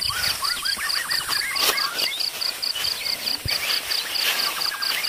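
Outdoor nature ambience: an insect chirps in a steady, even, rapid pulse, while birds call in quick, repeated chirping notes.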